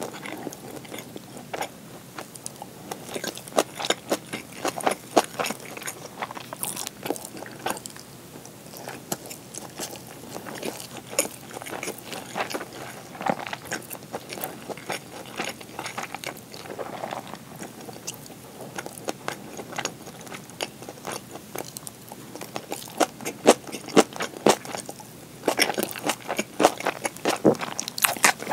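Close-miked chewing of a meal of pan-fried gyoza, kimchi and rice: irregular wet clicks and soft crunches from the mouth. The clicks come thicker and louder over the last few seconds.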